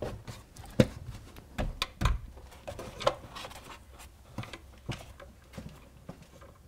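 Scattered knocks, taps and scrapes from a large wooden model railway baseboard being handled and pushed into place, with the sharpest knock a little under a second in.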